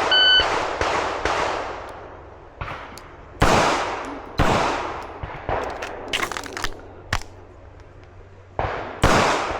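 A shot timer's start beep, then a string of about ten pistol shots at uneven spacing, each with a ringing echo, fired as a timed string in a pistol match.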